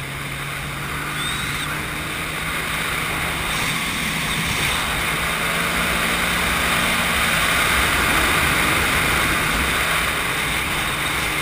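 Sea-Doo GTI SE personal watercraft underway: engine and jet pump running steadily under a rush of water and wind, getting louder over the first several seconds.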